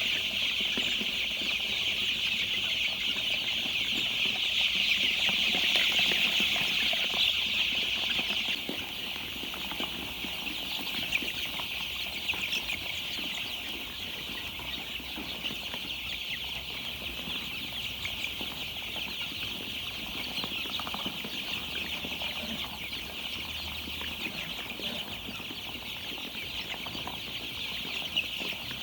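A large flock of young chicks peeping together in a continuous, high-pitched chorus. It is louder for the first eight seconds or so, then settles a little softer.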